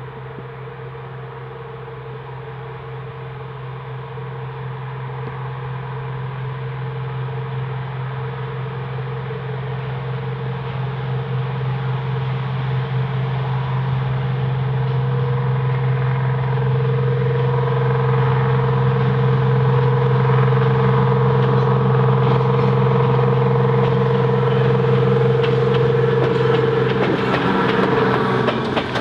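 Diesel-electric rail motor powered by two Detroit Diesel 6-71 two-stroke engines, working upgrade on a climb: a steady engine note that grows louder over about twenty seconds as it approaches, then wheels clattering over the rail as it passes near the end.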